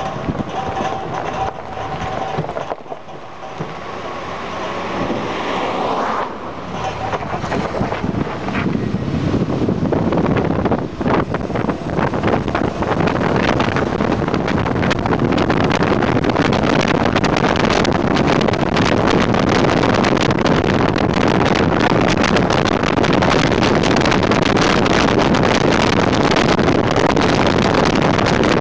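Jeep CJ7 driving on a paved road, heard from a microphone mounted outside by the front wheel: wind buffeting the microphone mixed with tyre and road noise. The noise builds over the first dozen seconds as the Jeep gathers speed, then holds steady.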